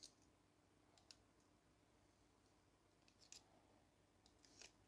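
Near silence, broken by a few faint, light clicks of steel tweezers against the brass plates and pivots of a clock movement being reassembled.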